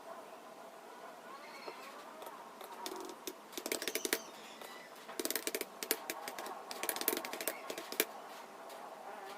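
Typing on a computer keyboard, in three quick runs of keystrokes starting about three seconds in.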